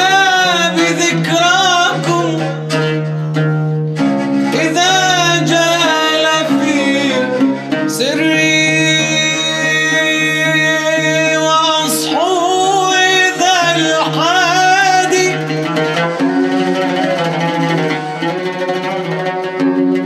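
Arabic nasheed sung by a male munshid: long ornamented vocal phrases with sliding pitch and vibrato over a steady low drone accompaniment.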